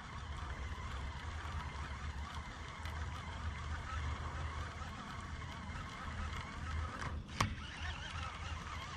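Open-air ambience: a steady low rumble with faint bird calls, and one sharp knock about seven seconds in.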